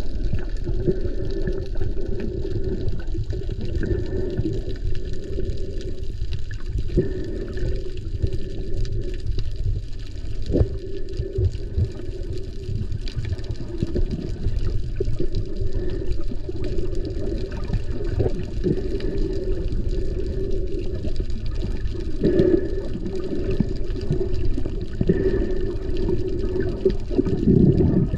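Muffled underwater water noise picked up by a submerged camera microphone: a steady low rushing and sloshing, with a few faint clicks scattered through it.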